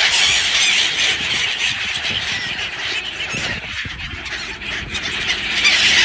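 A large flock of gulls calling all at once, a dense, continuous chatter of high cries that thins a little about four seconds in.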